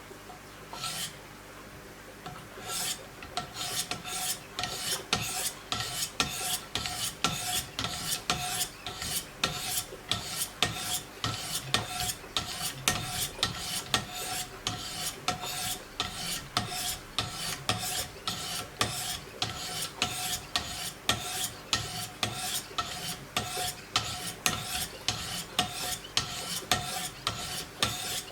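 Diamond stones of a Wicked Edge guided sharpening system stroked along the edge of a Giant Mouse K-GMF2 fixed-blade knife: an even rasping rhythm of about two strokes a second that gets going about two seconds in.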